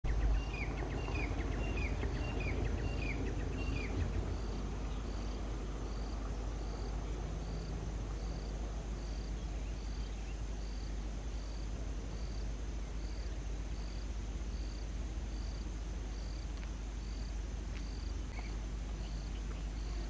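Outdoor ambience: a steady low rumble, with an insect chirping in short high pulses, evenly about one every 0.75 s. During the first four seconds a bird gives a quick series of short falling notes.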